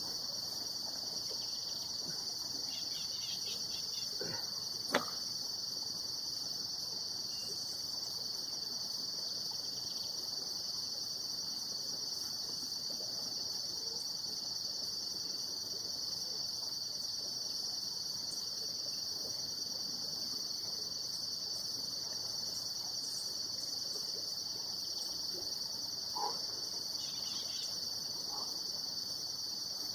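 Steady high-pitched chorus of insects trilling without a break, with one sharp click about five seconds in.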